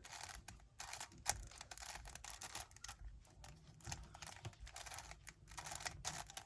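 Rubik's cube layers being turned through a middle-layer algorithm: a faint, irregular run of quick plastic clicks, with one sharper click about a second in.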